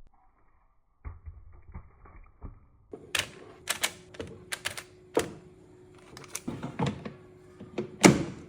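Kitchen clatter: irregular clicks and knocks of utensils and cookware being handled, with a faint steady hum underneath and one loud knock near the end.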